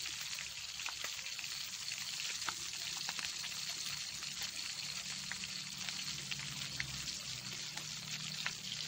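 Tamban herring frying in hot oil in a steel wok: a steady sizzle, with a few sharp clicks scattered through it.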